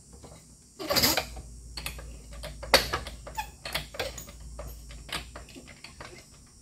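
Floor jack being set under an axle's pinion and worked by its handle: a run of irregular metal clicks and clanks, with louder knocks about one and three seconds in.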